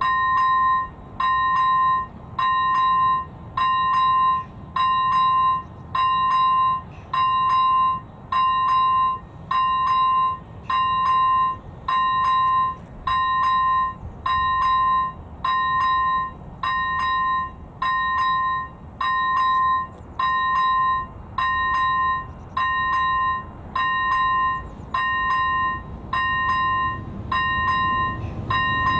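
Electronic level-crossing bell (E-bell ZV01) on an AŽD 97 Czech railway crossing signal, sounding an evenly spaced electronic bell tone about once a second. It warns that a train is approaching, and the train's rumble starts to rise near the end.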